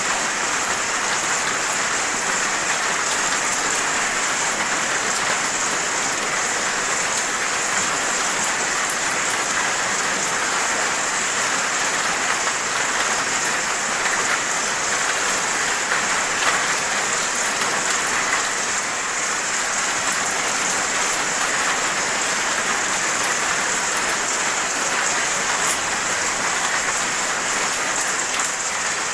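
Steady, heavy rain falling on a surface, a dense continuous hiss with many fine drop impacts.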